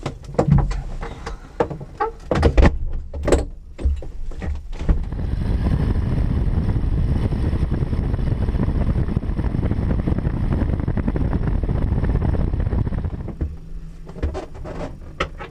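Knocks and clunks of a glider's canopy being handled and latched shut, then about eight seconds of loud, steady rushing noise from the tow plane's running engine and propeller wash, then more light knocks from the cockpit.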